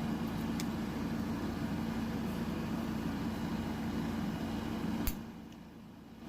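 Steady background machine hum with a low tone, a faint click early on and a sharp click about five seconds in, after which the hum briefly dies away.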